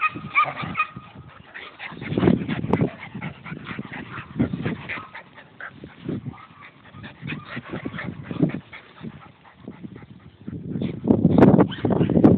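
An animal gives a few short high calls in quick succession at the start, followed by irregular muffled scuffling noises that are loudest near the end.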